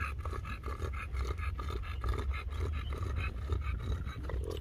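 Boat motor running at low speed: a steady low rumble with a fast, uneven chopping above it.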